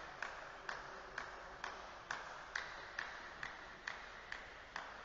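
A tennis ball being bounced over and over, about twice a second, a dozen evenly spaced taps that ring briefly in the hall. The taps stop near the end.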